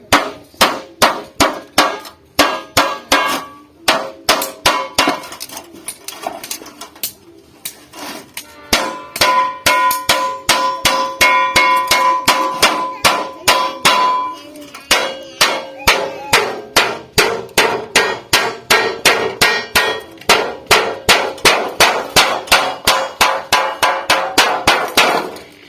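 Hammer striking sheet metal again and again, a few blows a second with a metallic ring after each, pausing briefly partway through: a folded seam is being hammered shut to join two pieces of the pot.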